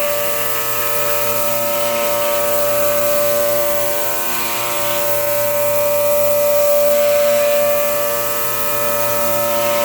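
High-speed milling machine running: a steady whine of several held tones, with a hiss that swells and fades every few seconds.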